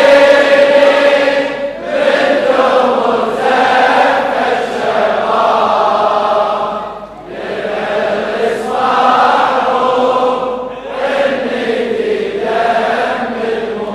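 A large congregation of men chanting a Shia mourning lament refrain in unison, in long sung phrases with brief breaks between them.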